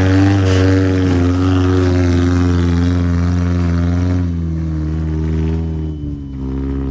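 Modified off-road jeep's engine revving under way, its pitch wavering a little, then easing off and dropping in level from about four seconds in.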